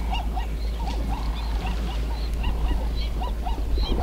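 Waterbirds at a waterhole calling in a fast series of short, goose-like honks, several a second, over a steady low rumble of wind on the microphone.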